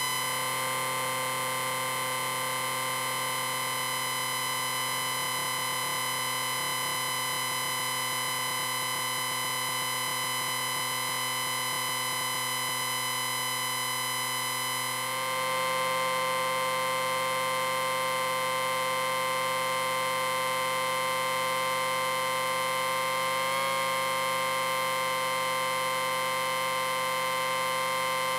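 Steady electronic beeping whine from an amplifier, several high and low pitches held together without a break. About halfway through, the lower pitches shift and the sound gets slightly louder.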